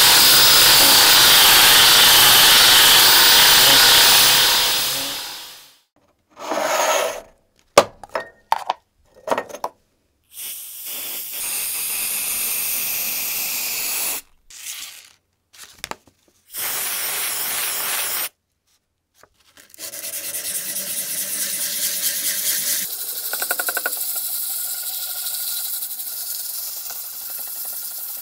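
Workshop abrasive and tool sounds in short cut-together clips: a loud steady hiss for the first five seconds, a few sharp knocks and clicks, then separate stretches of rubbing or sanding, the longest near the end.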